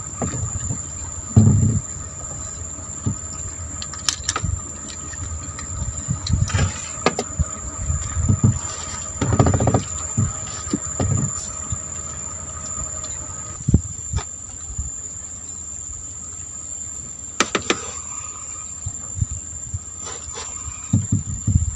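Steady high-pitched insect chorus, like crickets, with irregular low thumps and knocks and a few sharp clicks over it.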